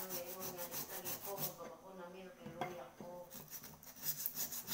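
Abrasive paper rubbed quickly back and forth on the outside of a small metal cooking pot, sanding its surface with rapid rasping strokes. The strokes pause about a second and a half in and start again near the end.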